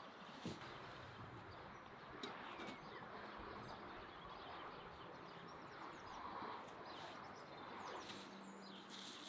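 Faint outdoor ambience with scattered small bird chirps and a few light clicks.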